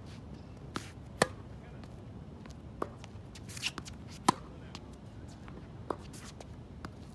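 Tennis rally on a hard court: sharp pops of rackets striking the ball and the ball bouncing, about every second or so. The two loudest are the nearby player's racket hits, about a second in and just past four seconds, with a brief shoe scuff just before the second.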